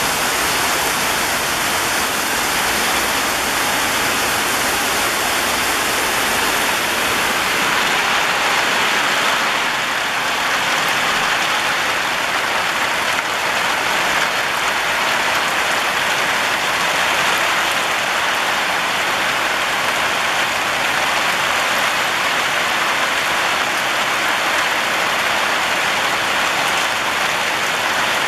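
Heavy rain falling steadily on clay tile roofs: a dense, even hiss of drops.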